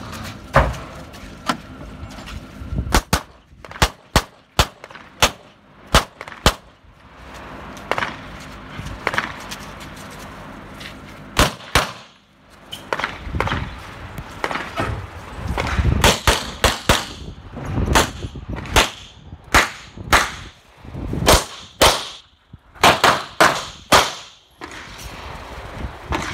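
Strings of 9mm pistol shots from a CZ Shadow 2, fired in quick pairs and bursts during an IPSC course of fire, with short pauses between groups of shots.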